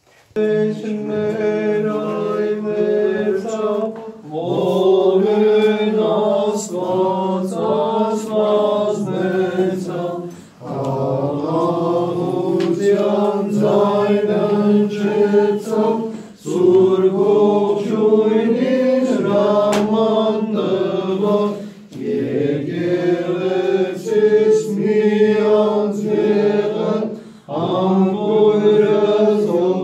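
Voices chanting an Armenian church hymn over a steady held drone note, starting suddenly about half a second in and going on in long phrases with short breaks between them.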